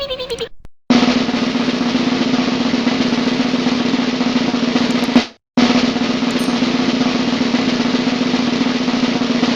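Snare drum roll played twice, each a steady roll of about four seconds that stops abruptly, with a short silence between.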